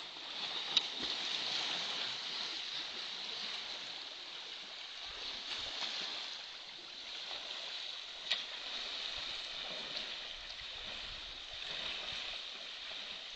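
Steady rushing hiss of moving water in an elephant's bathing pool, with two sharp clicks, one about a second in and one about eight seconds in.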